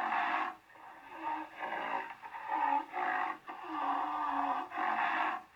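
Rhinoceros calling: a run of short pitched calls, one after another, with a longer call about four seconds in.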